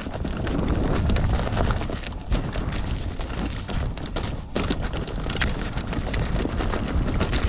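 Mountain bike rolling fast down a rough, rocky trail: tyres crunching over stones, the bike rattling and knocking over bumps, with wind rumbling on the microphone.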